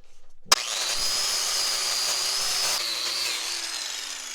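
Small wire-brush grinder switched on about half a second in and running with a steady high whine; from a little past the middle its pitch sags slowly.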